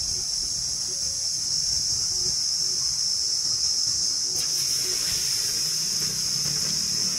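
Hot oil sizzling steadily as bread pakoras deep-fry, a high, even hiss. A wider, rougher sizzle joins about four and a half seconds in.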